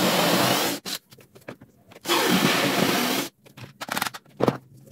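Cordless drill boring a 35 mm cup-hinge hole with a Forstner bit through a drilling jig into a wooden door panel, in two short runs of about a second each, the second starting about two seconds in. Light clicks and knocks follow near the end.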